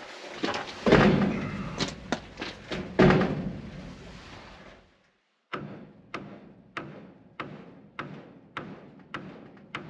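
Boards knocked into place on a wooden shelf frame: two heavy thuds among lighter wood-on-wood knocks. After a short break, a hammer drives nails into the wooden framing with about eight steady blows, a little more than half a second apart.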